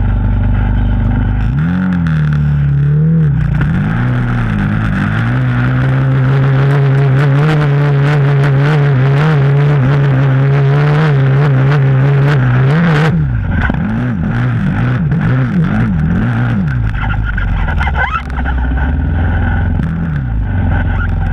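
Honda TRX450ER quad's single-cylinder four-stroke engine under load on sand. It revs up in the first few seconds and holds high, steady revs for several seconds. About two-thirds of the way through, the throttle is blipped on and off several times, and the engine ends at lower revs.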